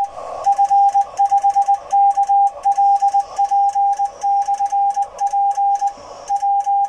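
Morse code (CW) from an amateur-radio transceiver: a single steady tone of about 800 Hz keyed on and off in quick dots and dashes without a break. The Morse is sent by computer rather than by hand on a key.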